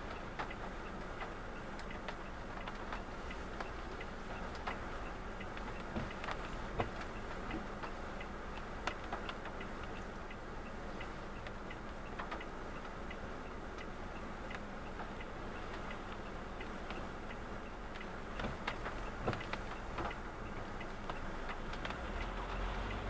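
Raindrops ticking irregularly on a car's windshield and roof, over the steady low hum of the car driving, heard from inside the cabin.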